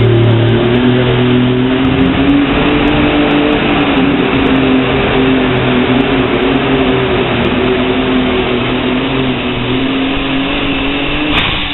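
Competition pulling tractor's engine running flat out through a pull, a loud, steady engine note that eases slightly as the run goes on. It cuts back suddenly near the end.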